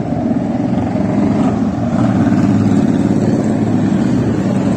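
Motor vehicle running along a street, a steady engine and road rumble that grows slightly louder about two seconds in.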